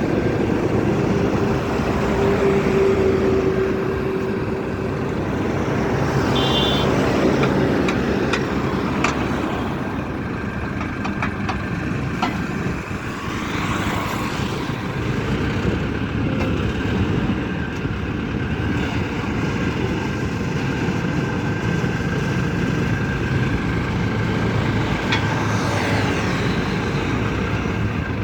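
The engine of a DD950B crash-barrier pile driver runs steadily, with a few faint knocks about a third of the way in.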